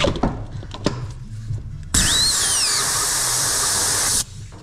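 Compressed air hissing loudly through a pneumatic CV boot fitting tool that stretches a rubber CV boot, starting sharply about two seconds in and cutting off near the end. A short falling squeal comes as the air starts, and a few clicks and knocks of handling come before it.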